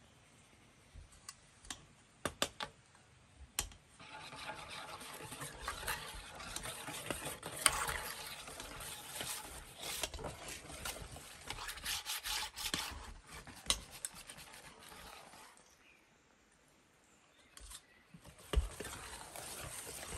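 Flour being sifted through a round metal hand sieve over a large aluminium basin: a few light taps on the sieve, then about twelve seconds of steady scratchy shaking and rubbing through the mesh, a brief pause, and the rasping starts again near the end as flour is worked into the wet batter by hand.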